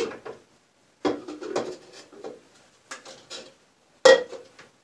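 Kitchen containers and utensils being handled and set down on a counter: a series of short knocks and clatters, the loudest a knock with a brief ring about four seconds in, as a tall jug is put down on the table.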